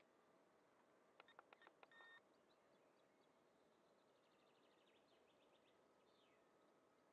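Near silence with faint outdoor ambience: distant birds chirping and trilling, and a short run of faint clicks ending in a brief beep a little over a second in.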